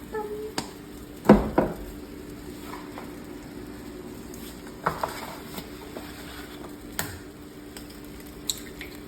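Cooking in a frying pan: faint sizzling of oil, broken by a few sharp knocks and clicks of utensils and cookware, the loudest two close together about a second and a half in.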